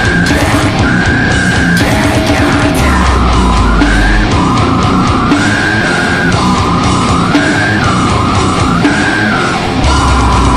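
Death metal song: loud, dense distorted guitars and drums, with a high guitar line wavering up and down above them. A deep low note drops in about three seconds in and again near the end.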